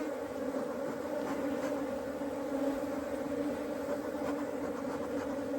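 A mass of honeybees buzzing in a steady hum, the colony stirred up by smoke.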